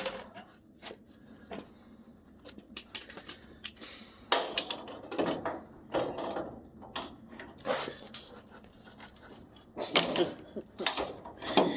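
Pliers working at a stuck bolt: irregular metallic clicks, knocks and scrapes of the tool on metal.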